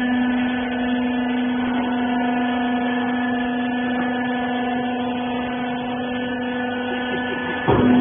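Hydraulic rags baler's electric motor and pump running with a steady hum. A short, louder burst of noise comes near the end.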